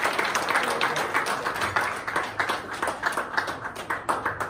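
Applause from a small crowd of people clapping their hands, thinning out to a few separate claps near the end.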